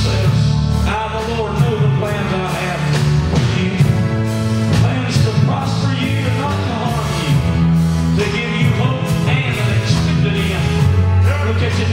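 Live church praise band playing, with a steady drum beat, bass and keyboard, and a voice singing over it.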